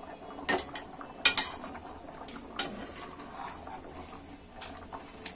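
A spatula stirring thick curry in a metal kadai, scraping and clinking against the pan, with several sharp clinks, the loudest a little over a second in.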